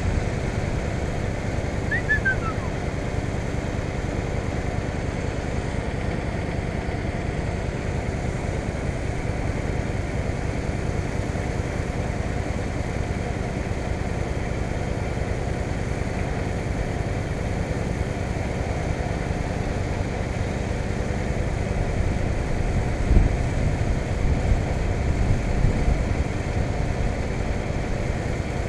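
Motorcycle engine idling steadily while stopped, with a few louder low rumbles between about 23 and 26 seconds in.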